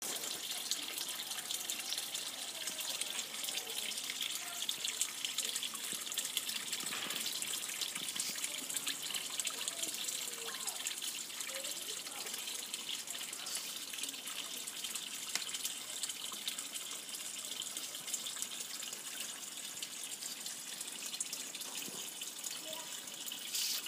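Water steadily splashing and trickling into a koi pond, a constant hiss with fine droplet ticks.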